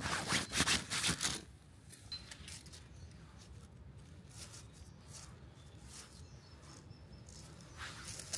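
Rustling of a backpack and gear being handled while packing, loud for about the first second and a half, then soft scattered rustles while a guyline cord is coiled, with a brief rustle again near the end.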